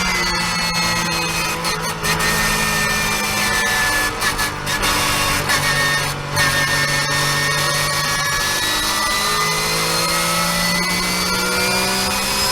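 Porsche 991.1 Cup car's flat-six race engine running hard at speed, with a whining pitch that drifts slowly down and back up and a few brief breaks, typical of gear changes.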